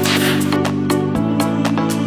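Background music with held low notes and a steady beat; the chord changes about a second in.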